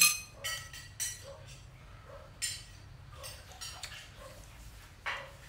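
A metal spoon clinking and scraping against a stainless steel pot and a bowl as food is scooped and eaten. There are several separate bright, ringing clinks, a few in the first second and another about two and a half seconds in, with the loudest near the end.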